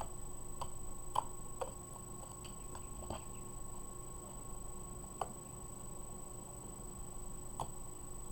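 Slime being kneaded and squished by hand, giving a few scattered soft clicks and pops, over a steady faint background hum.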